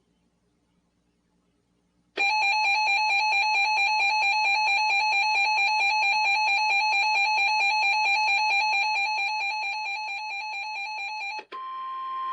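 Emergency Alert System attention tone: a loud, steady electronic alarm with a rapid flutter starts about two seconds in and holds for about nine seconds. Near the end it switches to a different, single steady tone for about a second and a half.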